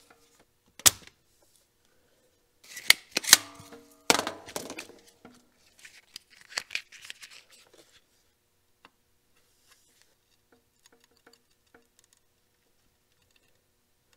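Hand-held spring-loaded desoldering pump (solder sucker) snapping: a sharp click about a second in and two more around three seconds, each with a brief ring. Softer clatter of tools handled on the workbench follows, then only faint small ticks.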